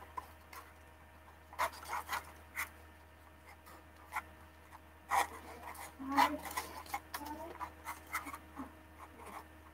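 Hands pressing adhesive tape into the inside rim of a paper lantern: scattered soft rustles and taps of paper and tape, coming more often in the second half.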